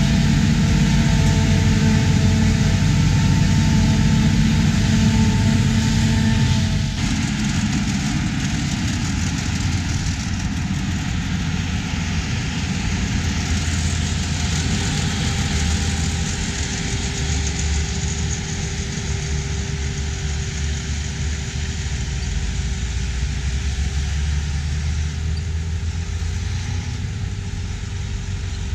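Claas Jaguar 870 forage harvester running under load while chopping corn silage, heard close to the machine: a loud, steady engine and machinery sound with several held tones. About seven seconds in, the sound changes abruptly to a somewhat quieter, steadier engine rumble.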